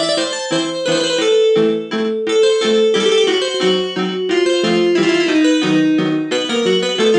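Polyphonic ringtone melody from a Samsung SGH-V200 phone, a piano-like tune of quick notes over a moving chordal bass line.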